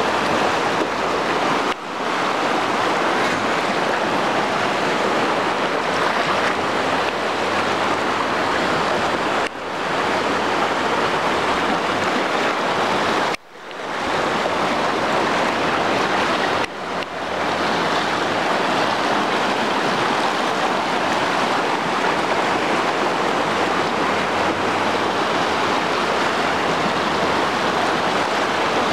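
A river in flood, swollen and fast: a steady, loud rush of water with no let-up, dipping out briefly four times.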